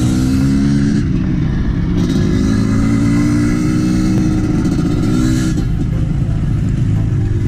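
Dirt bike engine running under acceleration: its pitch climbs briefly, drops about a second in as it shifts, then climbs in a longer pull to about five and a half seconds before easing to a steadier note.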